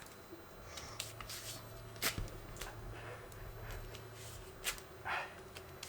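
Faint handling sounds from a leg wax with sugar-and-lemon paste: a few sharp clicks spread through, and a short rustle near the end.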